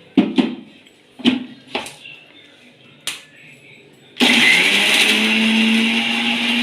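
A few sharp knocks, then about four seconds in an electric mixer grinder switches on, its motor whine rising quickly and settling into a steady run as it grinds the hariyali marinade.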